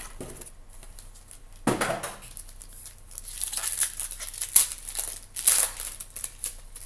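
A Topps Tier One trading-card box is ripped open sharply about two seconds in. Then the foil pack inside is crinkled and torn open in a run of crackling rustles.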